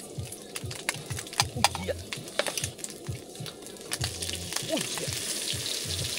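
Vegetables frying in a hot pan, with a utensil clicking and scraping against it as they are stir-fried; the sizzle grows louder near the end.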